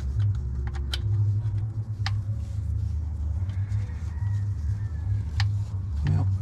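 A steady low rumble with a few sharp metallic clicks and taps, about three in all, from tools and engine parts knocking together during work on the engine's bottom end.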